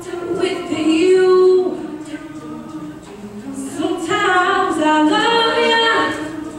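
A cappella group of mixed voices singing, a female lead over sustained backing harmonies with no instruments. The singing swells louder about a second in and again from about four seconds.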